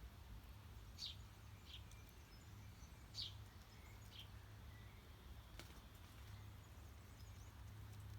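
Faint songbird chirps: four short, high calls in the first four seconds or so, over a low steady hum.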